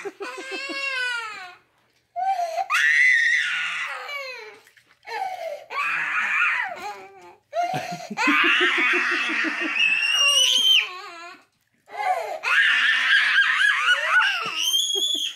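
Toddlers squealing and shrieking with laughter in about five loud bursts with short breaks between them, including a pulsing run of giggles and one high, rising shriek partway through.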